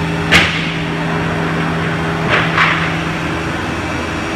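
Masterwood 12.25 CNC nesting machine running with a steady hum, with a short hiss about a third of a second in and two more close together about two and a half seconds in.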